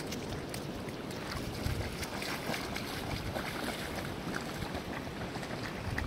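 Water splashing and sloshing as two large Bucovina Shepherd Dogs wade through a shallow river, with many small splashes throughout. Wind gusts buffet the microphone with a low rumble a couple of times.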